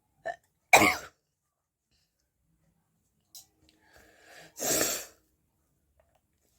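A person sneezing twice: a short catch of breath, then a sharp sneeze about a second in, and a second, longer sneeze a little past the middle, after a drawn-in build-up.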